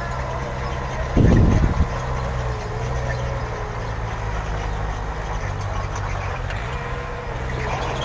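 Diesel engine of heavy earthmoving equipment running steadily at a low, even drone. About a second in comes a loud low burst lasting about half a second.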